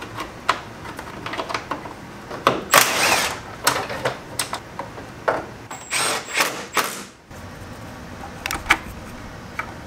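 Hands working on parts and wiring around the brake booster in a car's front trunk: irregular clicks, knocks and rattles of plastic and metal, with a short loud scrape or rustle about three seconds in and a few more clicks near the end.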